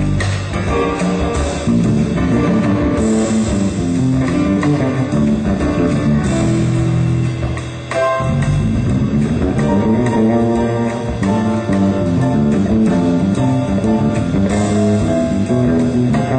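Jazz piano trio playing live: piano and bass over a drum kit, with a short drop in level about eight seconds in.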